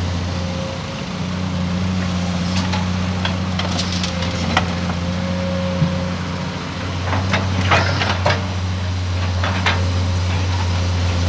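Heavy diesel engines of an excavator and dump trucks running steadily, with scattered sharp knocks and clunks of rock and metal as the truck is loaded.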